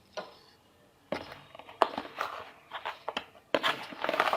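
A zippered fabric travel pouch being handled and unzipped: irregular short rustles and clicks that begin about a second in and come thicker near the end.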